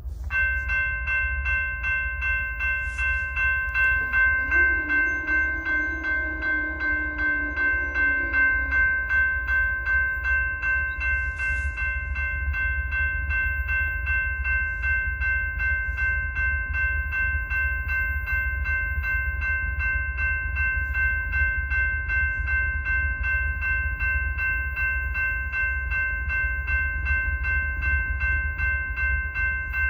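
Railroad crossing warning bell starting up as the signals activate, then ringing in even, repeated dings. A lower hum comes in about four seconds in and fades out a few seconds later.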